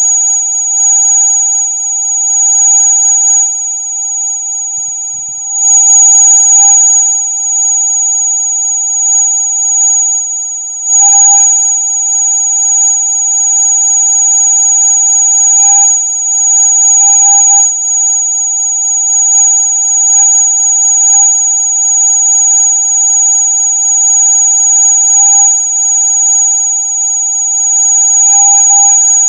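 Electronic rat-repellent sound: several steady synthetic tones at once, the loudest a piercing high-pitched whistle with a lower tone beneath and fainter tones between, sounding continuously with slight swells in loudness.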